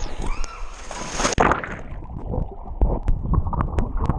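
Splash into a swimming pool about a second and a half in, then muffled underwater sloshing and bubbling with scattered knocks and clicks, heard with the microphone under the water.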